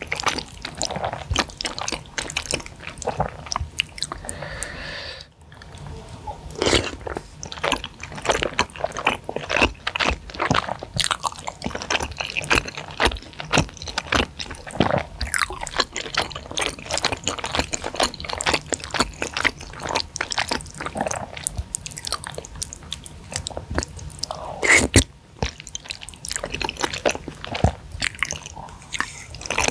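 Close-miked wet chewing and mouth sounds of spicy flat rice noodles (kwetiau) in thick saucy broth: a steady run of sticky clicks and squelches, with noodles slurped in near the end.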